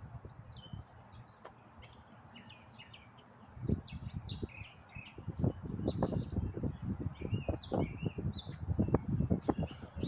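Small birds chirping and twittering throughout. About a third of the way in, a low, irregular rumbling with sharp bumps starts and keeps going, louder than the birds.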